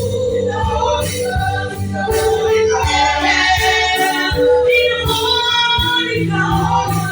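Church worship band playing a praise song, with singers holding long wavering notes over a steady low accompaniment and sharp rhythmic strokes.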